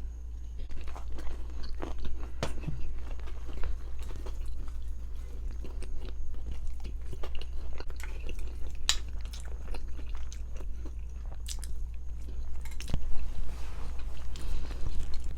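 Close-miked biting and chewing of a biscuit, with scattered crisp smacks and crunches over a steady low hum.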